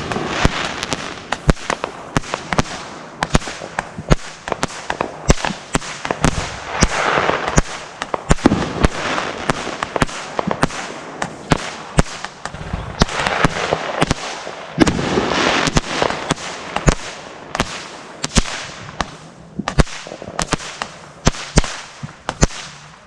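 Fireworks going off in a long run of sharp pops and crackles, with stretches of hissing in between.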